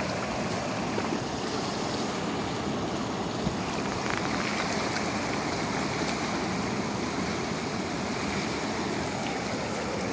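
Flowing river water at the bank, a steady even rush, with a few faint ticks.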